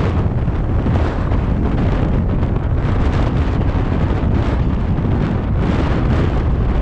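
Wind buffeting the microphone: a loud, unbroken low rumble that swells and dips unevenly, with a hiss of noise over it.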